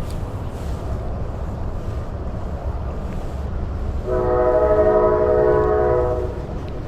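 A train horn sounds once, a steady chord of several notes held for about two seconds starting about four seconds in, over steady wind noise on the microphone.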